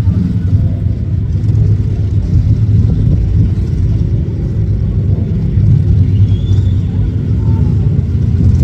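Motorcycle engines running at low revs, a steady, loud, low-pitched sound.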